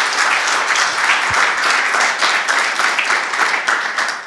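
Audience applauding: many hands clapping at once in a dense, steady patter that begins to thin out right at the end.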